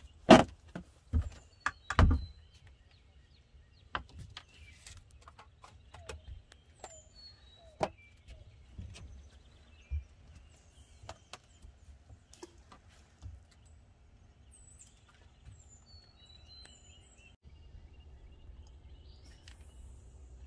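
Knocks and thumps of a man moving about a fishing boat's deck and handling a fishing rod, loudest in the first two seconds, then scattered light clicks. Birds chirp now and then in the trees.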